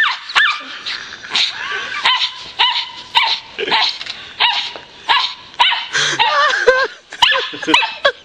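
Small dog barking and yipping over and over in quick, high-pitched barks, about two a second.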